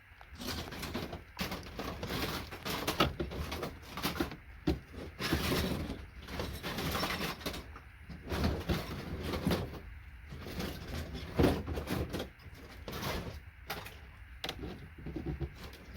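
Hand tools knocking, scraping and prying components off circuit boards: irregular clicks, clatters and scrapes.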